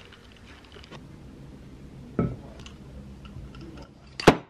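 Tableware being handled on a desk: a few light clicks and knocks, a sharper knock about two seconds in and a louder one near the end.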